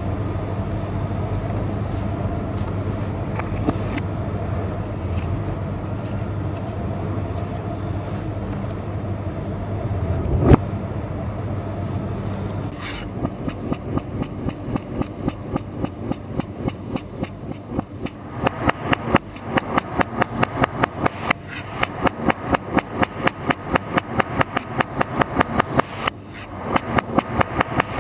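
A steady low hum, then from about halfway rapid, even knife chopping on a cutting board, about four strokes a second, with a couple of brief pauses.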